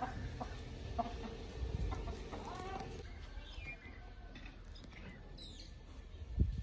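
Caged gamecock roosters clucking and calling faintly, with one short call near the middle, over a low rumble.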